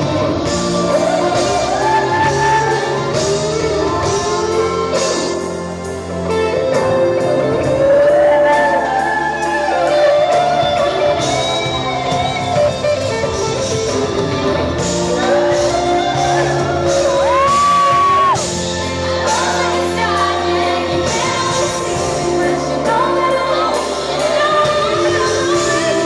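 Live pop ballad played by a full band: a woman sings the lead into a microphone over electric guitar, keyboards and drums, with a backing singer, ringing in a large hall.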